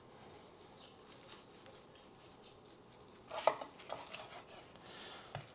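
Kitchen knife slicing a cooked tomahawk steak off the bone on a wooden cutting board, a fork holding the bone. Faint at first, then from about three seconds in a few short scrapes and clicks of the blade against bone and board.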